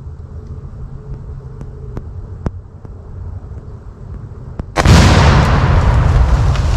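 A few faint sharp cracks, then about five seconds in a sudden, very loud explosion: an explosive charge in a dead tree set off by .223 rifle fire. The loud noise carries on after the blast.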